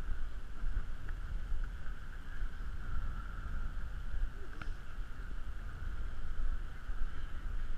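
Muffled, uneven rumble of wind and movement on a body-worn GoPro's microphone, over a steady higher hiss. A single sharp click comes about four and a half seconds in.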